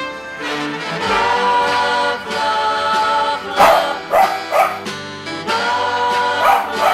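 A West Highland white terrier vocalising in short calls that rise and fall in pitch, over music: three come together about three and a half seconds in and two more near the end.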